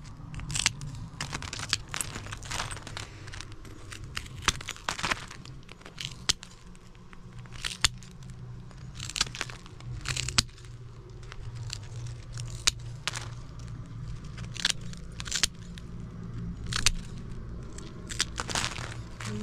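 Hand-held metal nippers snapping small chunks off a hard white block: sharp, irregular cracks about once a second, with pieces clinking as they drop. A steady low hum runs underneath.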